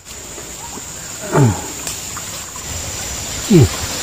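Short, low animal calls that each fall steeply in pitch, one about a second and a half in and another near the end. Under them runs a steady high insect buzz over a background hiss.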